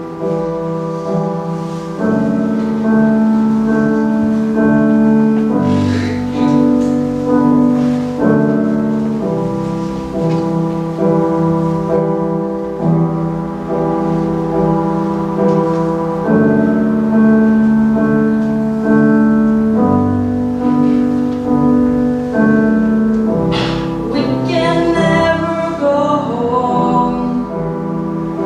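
Grand piano playing a slow introduction of held, repeated chords that change every couple of seconds. A singing voice joins near the end.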